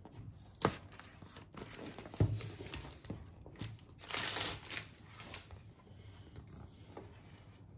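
Cardboard box and packaging being handled as it is opened: a few sharp taps and clicks, then a brief crinkling rustle about four seconds in.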